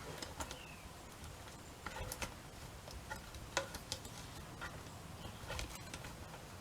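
Faint, irregular small clicks and taps of metal clock parts being handled as a pendulum is fitted to a Kaiser clock.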